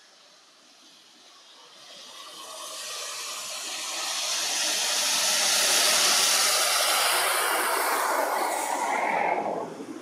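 A rushing hiss that swells over several seconds, peaks in the middle, then dies away near the end.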